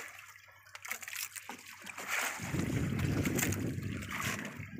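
Sea water sloshing and splashing against the hull of a small outrigger fishing boat. It is faint at first, then a louder, deeper rush of water comes in about halfway through.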